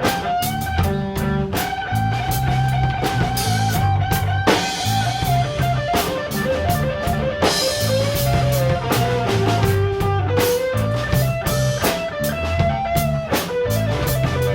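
Rock band playing an instrumental break: a lead electric guitar plays sustained notes that bend in pitch, over bass guitar and a drum kit keeping a steady beat.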